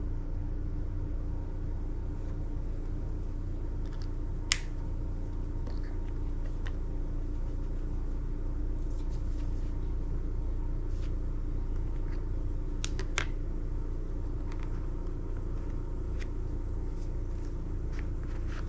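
Steady low background rumble with a faint steady hum, broken by a few sharp clicks: one about four and a half seconds in and two close together about thirteen seconds in.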